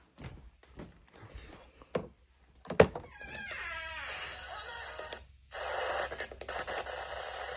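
Handling noises: scattered clicks and knocks, with one loud thunk about three seconds in. A steady hiss starts about five and a half seconds in.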